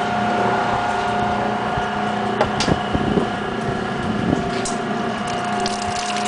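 Electric motor and gear drive of an antique Easy wringer washing machine running steadily with a constant whine, driving the power wringer rollers. A few sharp clicks and knocks come in scattered through it.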